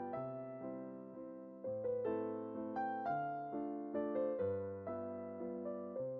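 Background music: a gentle piano tune, notes struck one after another and fading, over slower bass notes.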